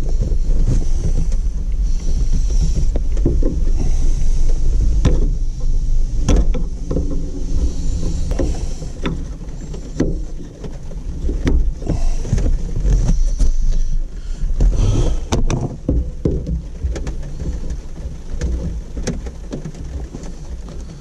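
Close, rumbling handling noise as an arm rubs near the microphone, with scattered sharp clicks and knocks from plastic fuel-line quick-connect fittings being worked loose on top of an in-tank fuel pump module.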